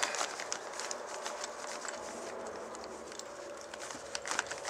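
Plastic packaging wrap crinkling and small handling clicks as a new diesel fuel injection pump is handled in its box, with a cluster of crinkles about four seconds in.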